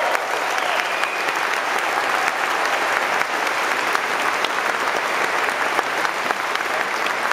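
Audience applauding steadily, a dense patter of clapping hands.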